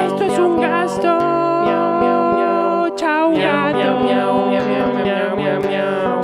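Acoustic guitar chords ringing under a man's wordless singing, with the voice sliding and wavering in pitch.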